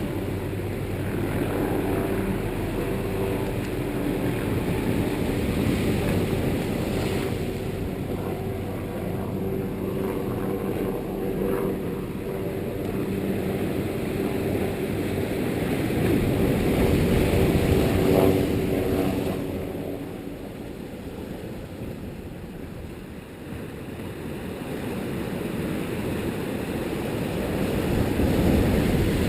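Strong wind rumbling across the camera microphone, with a steady engine hum under it for much of the time.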